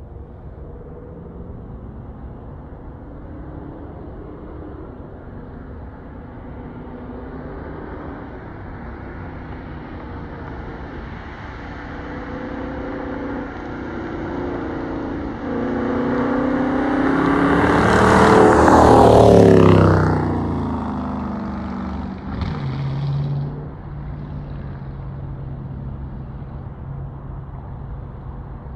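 Dodge Charger Daytona's Hemi V8 accelerating hard past the listener. The exhaust note rises in pitch and grows louder as it approaches, is loudest about two-thirds through, then drops steeply in pitch as it goes by and fades. A brief second burst of engine sound follows a few seconds later, then a low steady drone.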